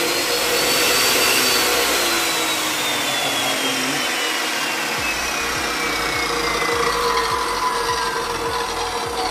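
Stanley SSC22 14-inch abrasive chop saw running free with no load, its motor and wheel giving a steady loud whine. A higher whine climbs over the first second or so, then slowly drops in pitch, with a few light knocks in the second half.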